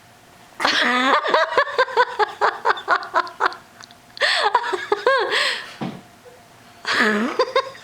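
People laughing in three bouts of rapid, high-pitched pulses, with short pauses between.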